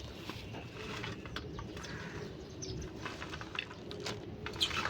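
Birds calling in the background: a low cooing call in the second half, with short high chirps and a few faint clicks.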